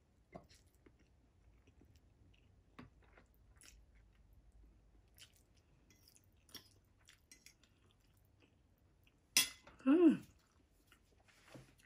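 Faint chewing of spicy instant ramen noodles, with light fork clicks against the plate. About nine seconds in, a sharp clink as the fork is set down on the plate, then a short voiced gasp that rises and falls in pitch, a reaction to the chili heat.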